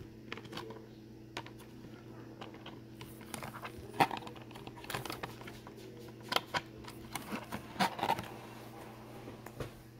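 Irregular light plastic clicks and knocks from an Element RC Enduro 24 mini crawler truck, its tyres and body bumping over a cardboard box obstacle while it is handled, with a couple of sharper knocks about four seconds in and near eight seconds.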